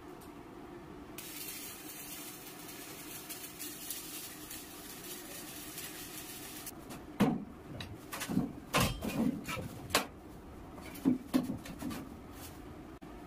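Welding on a sheet-metal boat hull: a steady sizzling hiss for the first several seconds, then a run of about seven sharp metallic knocks on the sheet over the following five seconds.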